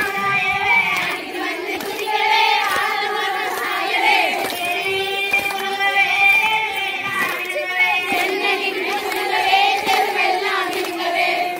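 Women singing a Tamil kummi folk song, a lead voice at a microphone with others joining, with hands clapping along to the dance.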